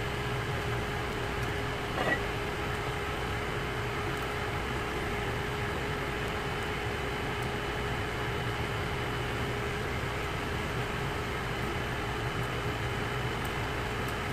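Steady machine hum of a running fan or similar motor, with a faint held tone over a low rumble. A single light click sounds about two seconds in.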